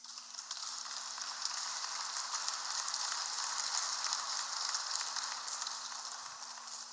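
Audience in a large hall applauding: dense crackling clapping that swells toward the middle and dies away near the end.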